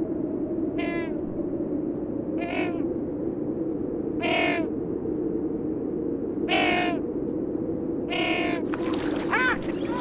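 Penguins calling: five short, harsh, hoarse calls spaced about two seconds apart over a steady background noise. Near the end the calls change to shorter, higher, rising-and-falling ones.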